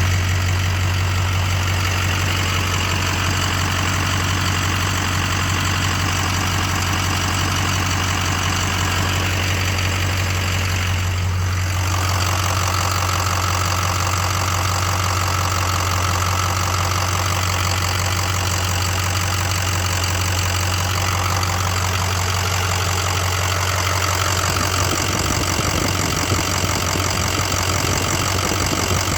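Ford 6.0 Power Stroke V8 turbodiesel idling steadily with a repeated tick or knock, which the owner cannot place between lifter tick and rod knock. The sound changes character a little before halfway through.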